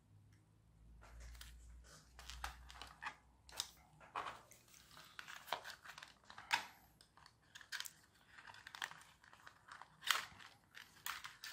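Irregular light clicks and knocks of hard plastic as a small toy RC car's body shell and chassis are handled, pressed together and turned over in the hands.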